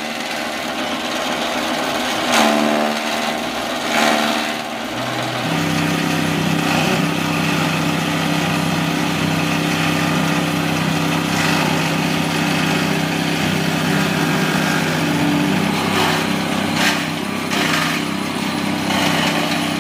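Chaff cutters chopping green fodder. From about five seconds in, a small petrol engine drives the cutter blades with a steady drone, and a few sharp cracks come as stalks and a sugarcane stalk go through.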